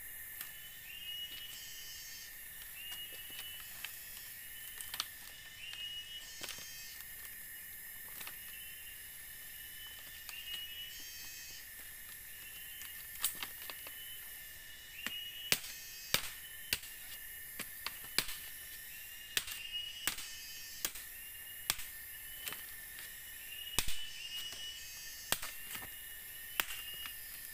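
Sharp cracks and knocks of bamboo being split and trimmed with a machete, scattered at first and coming thick and fast in the second half. Under them a steady insect drone, with a short rising chirp repeating about once every second or so.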